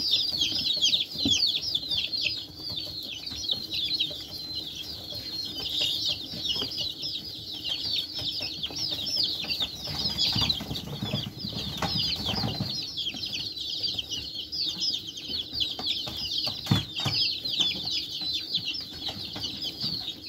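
A flock of young chicks peeping nonstop, many short, high, falling peeps overlapping, with some scuffling in the hay now and then.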